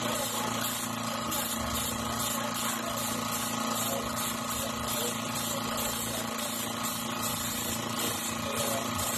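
Small air compressor running steadily with a constant hum, under the hiss of air from an airbrush being sprayed.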